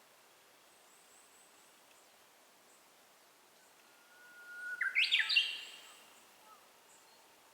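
Japanese bush warbler (uguisu) singing its 'hoo-hokekyo' song once: a long held whistle about four seconds in, breaking into a quick flourish of sharper, higher notes.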